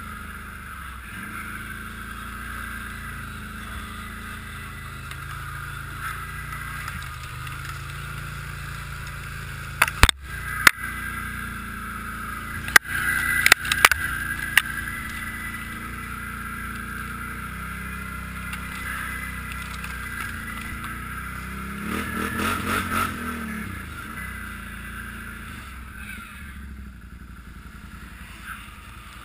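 ATV engine running steadily as the machine pushes through deep snow. A cluster of sharp knocks comes about a third of the way in, and a short rise in engine pitch, a brief rev, about three quarters of the way through.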